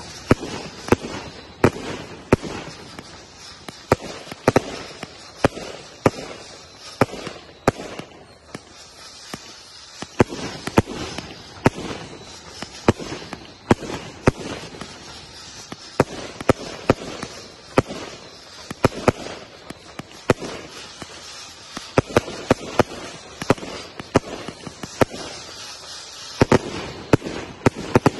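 Fireworks going off in a continuous string of sharp, irregular bangs, roughly one or two a second, over a steady hiss.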